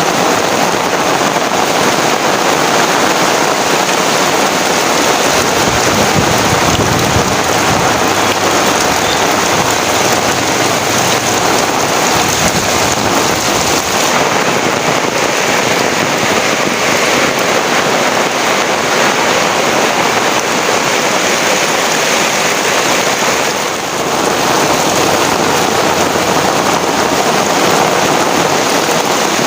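Heavy rain falling in a steady downpour, with a low rumble underneath from about six to twelve seconds in. The rain briefly eases about 24 seconds in.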